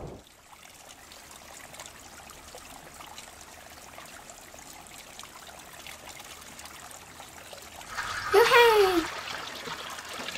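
Faint steady trickle of water. About eight seconds in, a child's voice gives one sliding call that falls in pitch, louder than the trickle.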